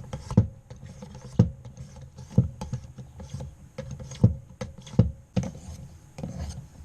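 A pocket knife being worked on a guided sharpening system: a string of sharp clicks and knocks, about one a second, as the blade and its holder are pushed across the wheel and shift in the clamp.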